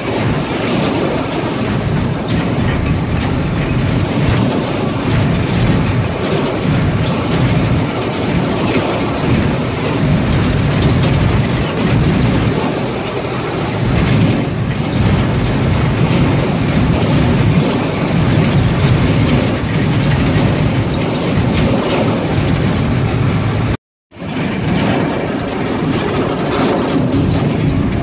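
Open-top safari jeep driving along a rough dirt track: a steady, loud rumble of engine, tyres and wind buffeting the open vehicle. The sound cuts out for a moment near the end.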